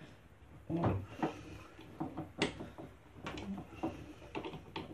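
Irregular metallic clicks and knocks from hands working a drill press chuck by hand while an 8 mm drill bit is swapped in.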